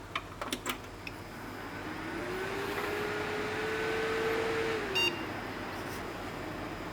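Old desktop PC starting up: a few clicks, then the fans and drives spin up with a hiss and a whine that rises, holds and drops away about five seconds in. A single short POST beep sounds at that moment, the sign that the computer has passed its power-on self-test with the new power supply.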